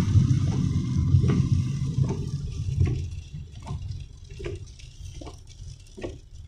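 Car cabin noise on a wet road: tyres hissing through water over a low engine and road rumble, which falls away about three seconds in as the car slows. After that, soft regular ticks come about once every 0.8 seconds.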